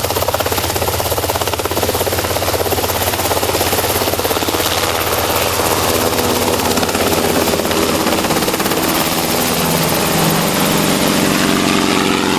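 Helicopter running close by, its main rotor making a fast, even chop. A steadier engine tone joins in about halfway through.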